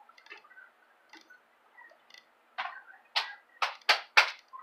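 A few faint clicks, then a run of five sharp knocks in quick, uneven succession in the second half.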